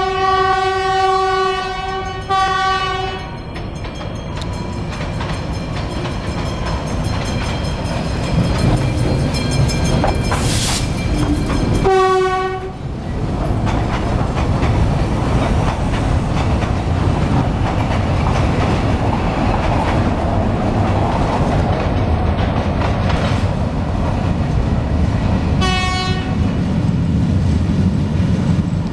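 GE U11B diesel locomotive sounding its horn, a long blast then a shorter one, then a short blast about twelve seconds in and another near the end. Between the blasts the locomotive's diesel engine runs and the work train's open freight cars roll past with a steady clickety-clack of wheels on the rails.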